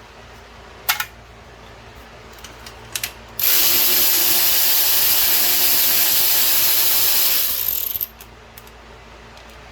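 Handheld power tool run in one burst of about four seconds, backing out fasteners during an ATV engine teardown, with a few light metal clicks before and after.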